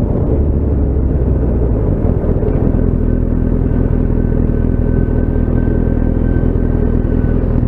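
Motorcycle engine running steadily under way, mixed with wind and road rumble on the action camera's microphone. The deepest part of the engine note eases about two seconds in.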